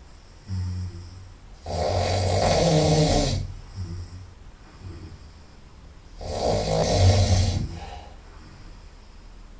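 A person snoring loudly through the nose: two long, loud snores about four and a half seconds apart, each lasting well over a second, with a shorter, quieter breath sound before the first.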